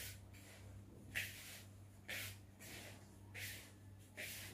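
Hand rubbing semolina and oil together in a plastic mixing bowl for harcha dough: faint, short swishing strokes about once a second.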